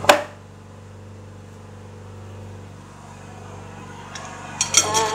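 Kitchen scissors snipping: one sharp click just after the start and a quick run of clicks near the end, over a low steady hum.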